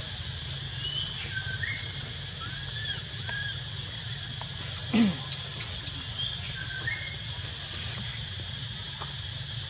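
Outdoor ambience: a steady high hiss and low hum, broken by a few short high squeaks and chirps, with a brief louder low falling call about five seconds in and a cluster of high squeaks a second later.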